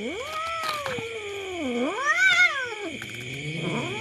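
A domestic cat yowling: one long drawn-out wavering meow of about three seconds that rises, dips, climbs to a high peak and falls away, then a second cry starting near the end. The cat is waiting to be fed at a pile of fish.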